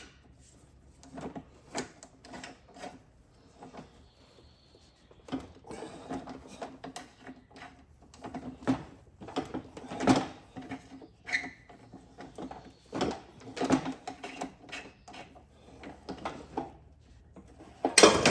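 Hand rivet-nut (nutsert) setting tool being worked a little at a time to crimp a half-inch insert into a steel running board: irregular metal clicks, knocks and creaks, with a louder clatter near the end.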